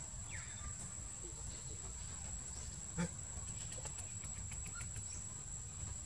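Outdoor forest ambience: a steady high thin whine over a low rumble, with a few faint chirps and quick ticks, and a single sharp click about halfway through.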